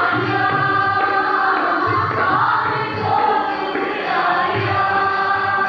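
Sikh kirtan: several male voices singing a shabad together in long, sliding held notes, accompanied by harmonium and tabla, whose soft deep strokes recur under the singing.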